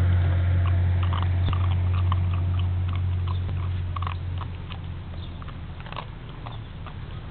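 Basset hound puppy chewing a treat: quick, small crunching clicks for about five seconds. A steady low hum underneath fades out about five seconds in.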